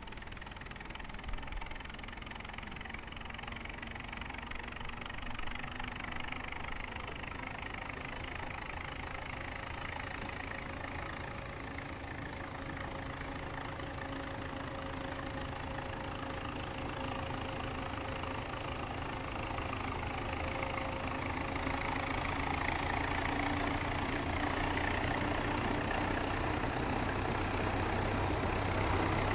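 Small narrow-gauge locomotive engine running. Its note rises slowly and it grows gradually louder.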